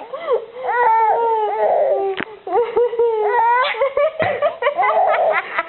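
A young child's long, high-pitched squealing cries of laughter, held and wavering, with rough raspy patches. A sharp click about two seconds in.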